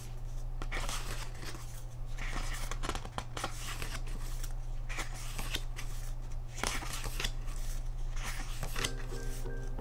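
Pages of a glossy album photo book being turned by hand, the paper rustling and flapping in repeated short strokes over a steady low hum. Background music comes in near the end.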